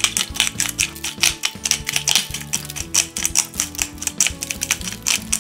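Salt sprinkled by hand onto potatoes on crumpled aluminium foil: a rapid, irregular patter of sharp ticks as the grains land on the foil. The ticking stops near the end.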